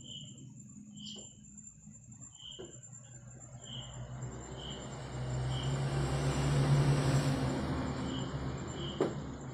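Short high chirps repeating about every two-thirds of a second, over a rushing noise with a low hum that swells through the middle and eases off near the end.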